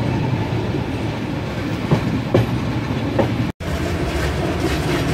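Passenger train rolling along the track, heard from inside the carriage: a steady rumble with a few sharp clacks of the wheels over the rails. The sound cuts out for an instant about three and a half seconds in.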